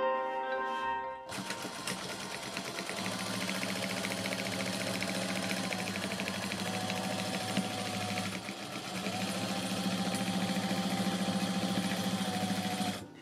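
Electric sewing machine running: a motor hum with rapid, evenly spaced needle strokes. It eases off briefly about eight seconds in and stops just before the end. Soft music plays for the first second or so before the machine starts.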